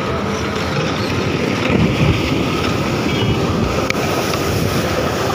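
A section of a concrete bridge and its earth fill collapsing into the river, with a low rumble about two seconds in over a steady rush of moving water and wind on the microphone.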